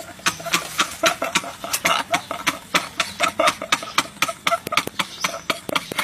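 Laughing-meme sound effect: men laughing hard in a fast, uneven string of short, sharp bursts, several a second.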